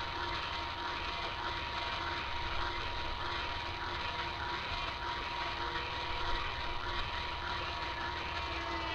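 Small toy-boat motor running steadily, a constant high whine over a dense hiss, dipping slightly in pitch near the end.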